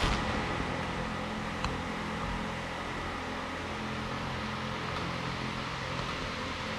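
Steady low machine hum with an even hiss, with a short click right at the start and another about a second and a half in.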